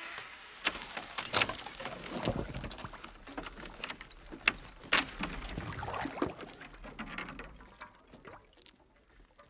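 Outdoor handling noise from a photographer at work in snow: jacket and gear rustling and crunching, with a few sharp clicks. It grows quieter near the end.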